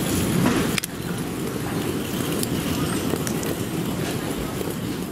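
Wheeled suitcase rolling across a tiled floor: a steady rough rumble of the wheels, with one sharp click about a second in.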